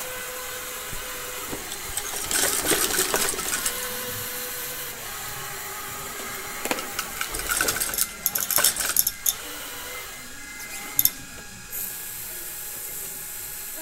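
A tracked robot's drive motors and treads whirring and rattling in bursts as it drives and turns, with a couple of sharp clicks near the end over a steady hiss.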